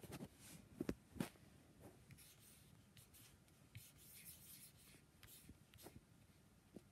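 Near silence with a few faint scattered clicks and some light rubbing.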